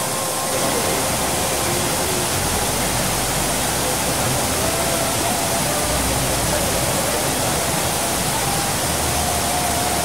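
Waterfall pouring into a rocky pool: a steady, even rush of falling water.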